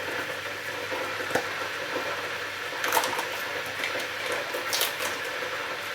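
A kettle heating toward the boil: a steady rushing hiss, with a few faint ticks or pops from the cooking spread through it.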